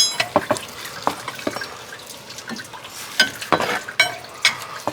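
Metal tools clinking and clanking, with one ringing clink at the start and a run of clanks from about three seconds in, over coolant trickling steadily into a drain pan.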